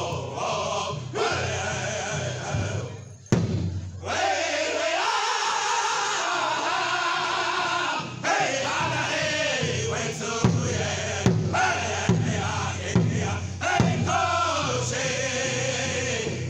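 Powwow drum group: men singing a powwow song together in high voices over a large powwow drum struck by several drummers with padded sticks. The singing and drumming drop out briefly about three seconds in, broken by one hard drum strike.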